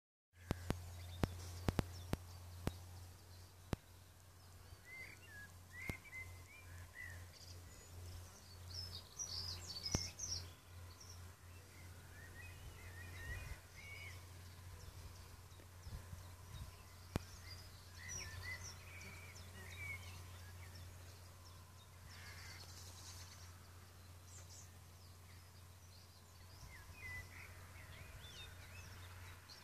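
Birds chirping and calling on and off over a low steady rumble, with a few sharp clicks in the first few seconds.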